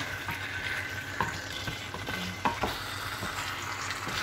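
Chicken wings and potato chunks sizzling in a frying pan while a spatula stirs them, with a few sharp knocks of the spatula against the pan, the loudest about a second in and again halfway through.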